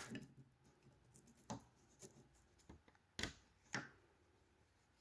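Near silence, with a few faint clicks and taps as small parts of a door-handle jig are handled and fitted.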